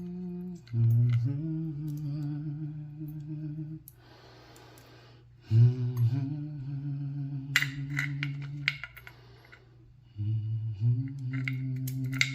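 A man humming three long held notes, each stepping up from a short lower start, with a breath between phrases. A few light clicks come in the second half.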